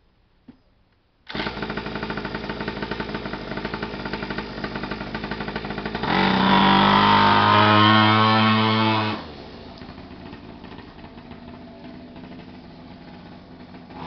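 Mini moto pocket bike's small two-stroke engine pull-started, catching first time about a second in and running with a fast, rattly idle. About six seconds in it revs up loud for some three seconds, then drops back to a quieter steady running as the bike moves off.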